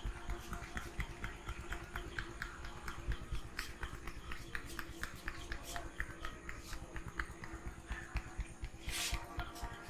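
Hands massaging a head: a quick, irregular patter of small taps and slaps on the scalp, with a brief rustle near the end.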